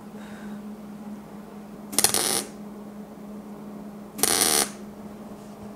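MIG welder laying two short tack welds on the two butted halves of an air cleaner base. Each is a burst of under half a second, about two seconds apart, over a steady low hum.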